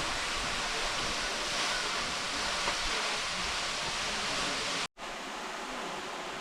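Waterfall rushing, a steady roar of falling water. It cuts out for a split second about five seconds in and returns slightly quieter.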